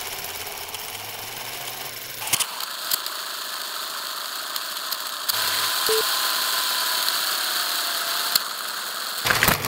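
Film projector running: a steady mechanical whir and rattle with scattered clicks, shifting in tone about two and a half and five seconds in.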